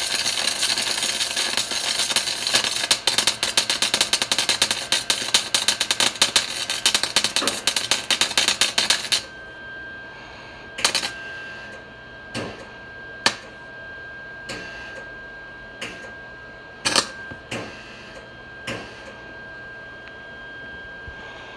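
MIG welding arc crackling and sputtering steadily for about nine seconds, then cutting out. After that there is only a faint steady high tone and scattered single pops, with the welder not working properly and its wire not feeding.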